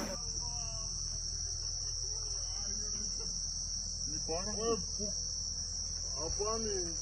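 Steady high-pitched chorus of night insects, crickets or katydids, trilling without a break. Faint voices come in twice, about four and six seconds in.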